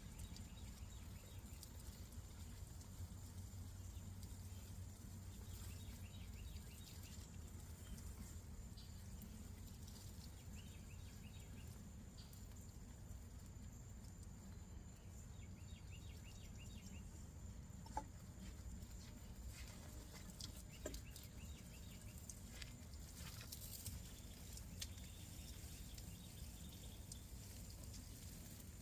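Faint outdoor ambience: a steady low rumble with short, high chirping trills now and then and a couple of light clicks.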